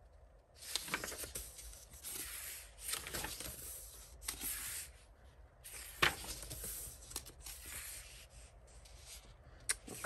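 Paper pages of a coloring book turned by hand, rustling and swishing in several separate sweeps, with a sharper flick about six seconds in.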